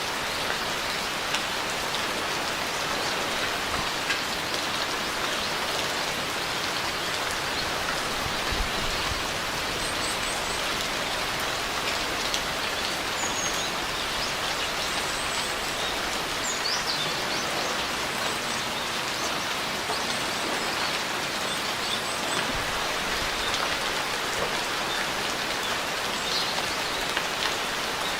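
Steady rain falling and pattering on surfaces, an even unbroken hiss at a constant level. A few faint high chirps come through now and then in the middle.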